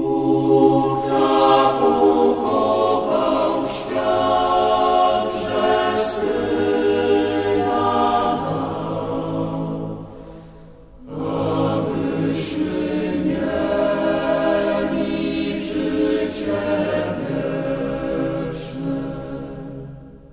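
Choir singing a slow sacred chant in two long phrases, with a short break about ten seconds in.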